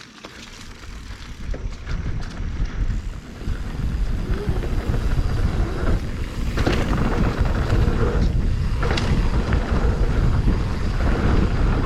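Wind rushing over the camera microphone, with the mountain bike's tyres rumbling over the trail, building over the first few seconds as the bike picks up speed and then staying loud and steady. Two sharp knocks, about seven and nine seconds in, are the bike striking bumps or rocks.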